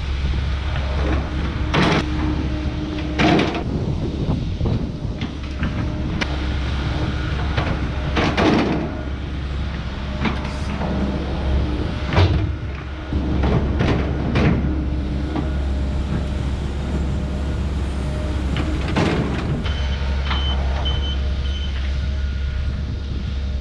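Earthmoving machine's engine running steadily while it is driven and manoeuvred, with clanks and squeals every few seconds from its tracks or working parts.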